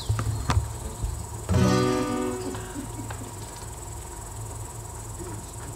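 A single acoustic guitar chord strummed once about one and a half seconds in, left to ring and fade, with a few small clicks from the stage. Underneath there is a steady low hum from the amplification and a steady high chirring of crickets.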